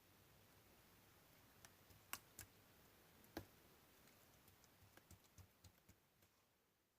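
Faint, irregular clicks and small pops of slime being pressed and stretched by hand, a few isolated ones at first and then a quick cluster about four to six seconds in, fading out near the end.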